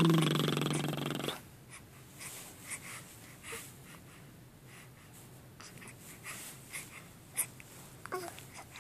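A loud low tone drops quickly in pitch at the start and holds for about a second before cutting off. After it come a baby's faint snuffly breathing and small mouth clicks, with a brief high little vocal sound near the end.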